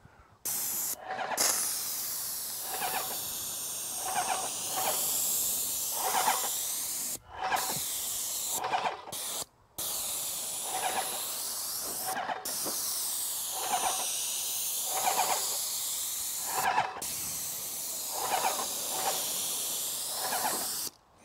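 Graco Magnum ProX17 airless sprayer spraying wood stain: a steady high hiss from the gun tip, broken by several brief stops as the trigger is released. A lower pulse recurs about once a second underneath.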